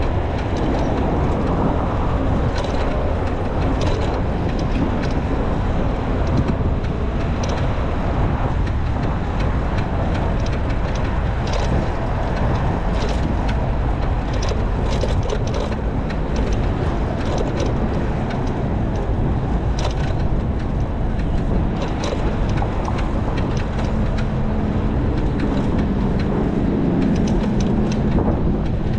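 Riding noise from a Citi Bike: a steady rumble of wind and road noise, with frequent small clicks and rattles as the bike rolls over the pavement, and traffic on the road alongside. A low steady hum comes in near the end.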